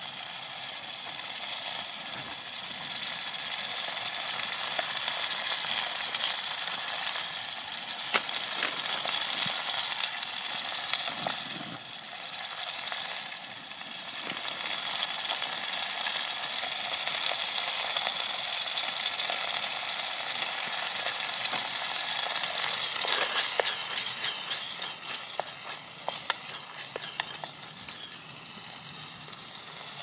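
Pot of tomato stew simmering and sizzling: a steady hiss with fine crackling that swells and eases a little.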